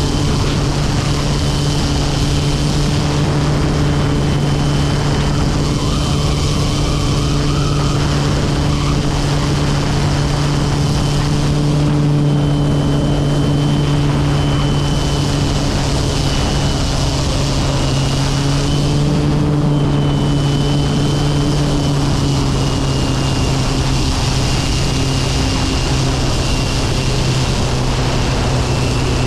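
Kodiak 100's Pratt & Whitney PT6A turboprop engine and propeller giving a steady low drone with a thin high turbine whine, heard from outside on the wing with wind rushing past. In the last few seconds the drone eases slightly lower in pitch as power comes back for the landing on a grass strip.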